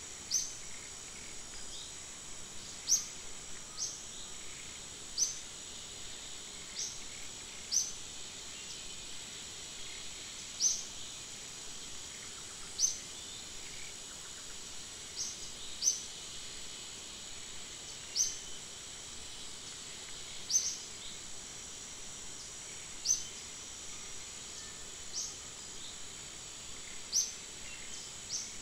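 A steady high-pitched insect drone, with short, sharp rising chirps repeating every two seconds or so.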